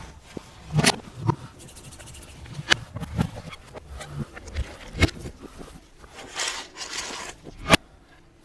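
Irregular sharp knocks and scrapes, about half a dozen spread unevenly, with a short rustling scrape a little past the middle.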